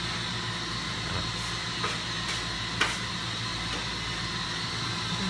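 Steady hum of boiler-room machinery running, with a few faint clicks about two and three seconds in.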